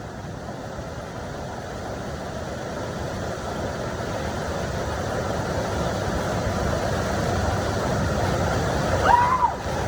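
Waterfall's rushing water, a steady roar that grows louder throughout, with a short shout near the end.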